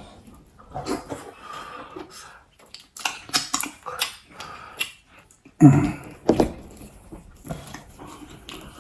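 Close-up mouth sounds of eating: wet chewing and lip smacks, clicky strokes in a cluster about a third of the way in. A little past halfway comes a loud voiced exhale, breath forced out over food that is very hot.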